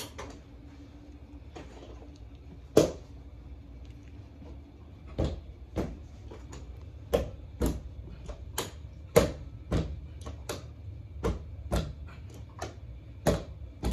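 Carpet knee kicker being bumped with the knee to stretch carpet onto the tack strip: a string of sharp knocks, one about three seconds in, then roughly one to two a second from midway on.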